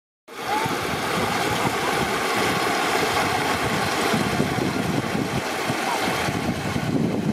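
Floodwater rushing over a submerged road in white-water rapids: a loud, steady rushing that starts abruptly just after the beginning.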